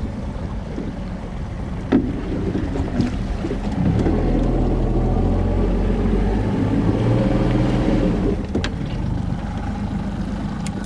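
A boat's outboard motor running with a steady low hum that grows louder and fuller for a few seconds in the middle, with a sharp knock about two seconds in.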